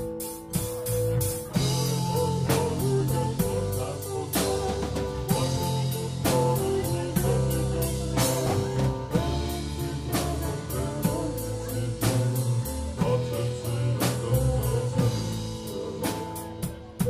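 Live dark-folk band playing: a strummed acoustic guitar and sustained pitched notes over a drum kit keeping a steady beat.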